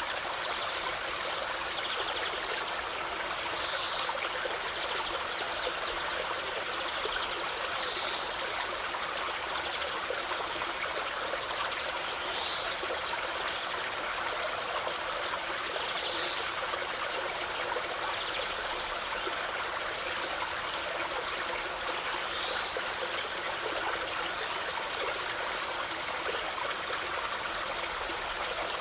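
River water flowing over stones, a steady babbling rush without a break.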